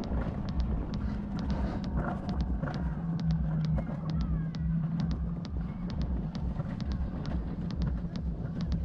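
Alpine mountain coaster sled running along its rails: a steady rumble and hum with sharp, even clicks about three a second.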